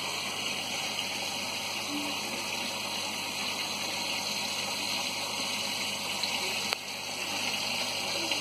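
Steady bubbling and splashing of aquarium water from air-driven sponge filters and air lines, a continuous watery hiss, with one short click about two-thirds of the way through.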